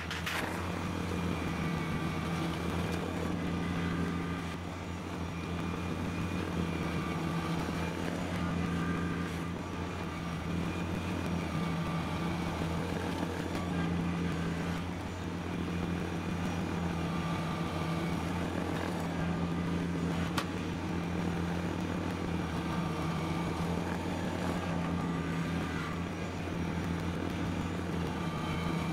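Kubota BX compact tractor's three-cylinder diesel engine running steadily under load while driving a front-mounted snowblower that is throwing snow, with slight dips in level now and then. A single sharp tick sounds about two-thirds of the way through.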